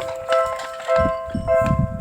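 Japanese level crossing's electronic warning bell ringing about twice a second. From about a second in, a train's low rumble and wheel clatter rise underneath as it passes the crossing.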